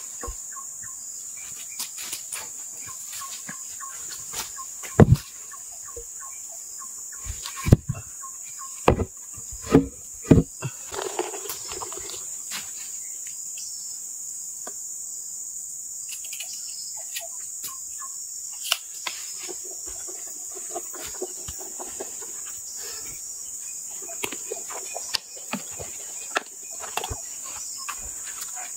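Steady, high-pitched insect buzzing, with a series of heavy wooden thumps about 5 to 10 seconds in as hardwood ulin beams are knocked and set down, and a few lighter knocks later. The chainsaw is not running.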